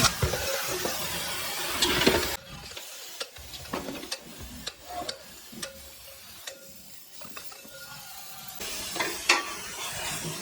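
Scattered metal clicks and knocks of hand work on scrap compressor parts. A steady hiss runs under the first two seconds or so, stops, and comes back near the end.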